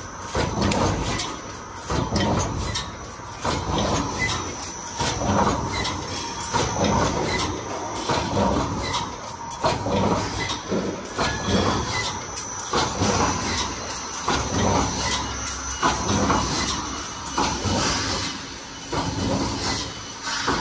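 Automatic welded wire mesh welding machine running in its production cycle. Its welding head and mesh-pulling carriage make repeated clanking strokes, about one a second, over a faint steady tone.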